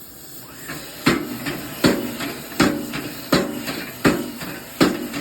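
Homemade cam-driven dead-blow power hammer in the da Vinci style, striking in a steady rhythm. It lands six heavy blows about three-quarters of a second apart, starting about a second in, each with a short metallic ring.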